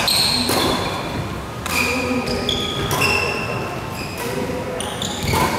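Badminton doubles rally: rackets striking the shuttlecock a few times with sharp, echoing hits, and sneakers squeaking briefly on the court floor between them.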